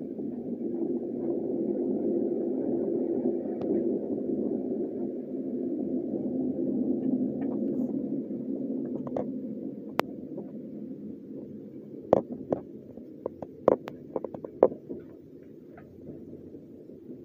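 TLK passenger train running, heard from inside the carriage: a steady low rumble of wheels on rail that swells through the first half and then eases off. A quick run of sharp clacks comes about two-thirds of the way through, as the wheels cross rail joints or points.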